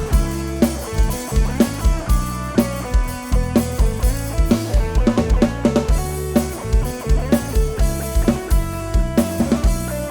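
Live band playing an instrumental passage in Isan luk thung style: electric guitar melody over bass and a drum kit keeping a steady kick-drum beat.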